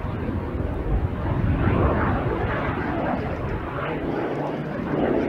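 Soko G-2 Galeb's single Rolls-Royce Viper turbojet as the jet flies overhead, a dense rushing jet noise with a deep rumble that swells and eases slightly.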